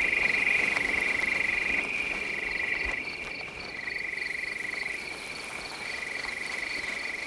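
Night-time chorus of trilling frogs or insects: a high, steady, fast-pulsed trill that runs in phrases of a second or two with short breaks between them, with a fainter, higher pulsing behind it.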